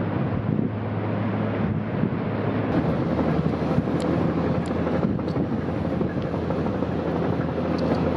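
Wind rushing and buffeting the microphone over a low, steady hum, with a few faint crackles about four seconds in.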